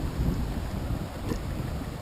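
Wind buffeting the microphone: a steady, gusty low rumble with no distinct pitched sound in it.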